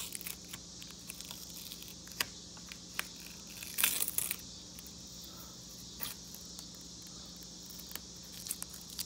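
Rubbery Plastidip coating being peeled and torn off a chrome car emblem by hand: scattered short crackles and small tearing sounds, the loudest cluster about four seconds in. Crickets chirr steadily underneath.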